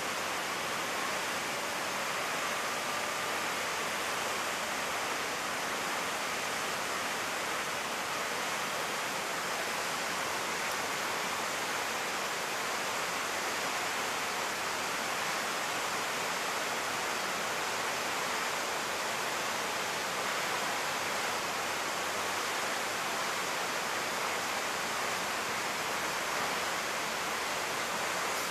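Whitewater rushing down a concrete dam spillway, a steady, unbroken rush of water.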